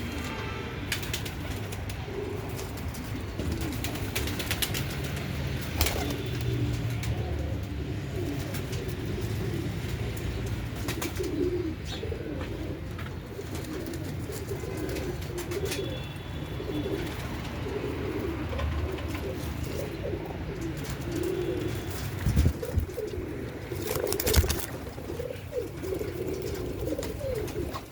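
Domestic pigeons cooing continuously in a loft, many low wavering coos overlapping, with scattered sharp clicks and a few louder knocks near the end.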